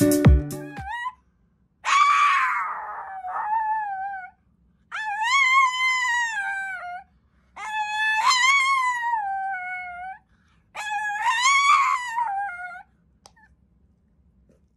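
A small dog howling along with a woman in four long, wavering howls of about two seconds each, the pitch sagging at the end of each. A music track cuts off about a second in.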